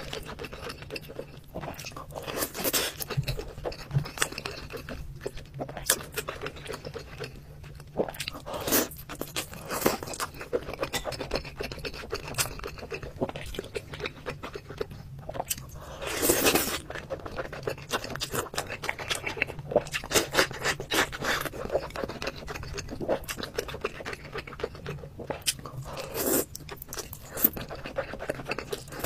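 Close-miked eating sounds: chopsticks and a spoon scraping and clicking against a bowl, with wet chewing of rice, braised pork and egg. The sounds come in quick irregular clicks, with one louder, longer scrape about halfway through.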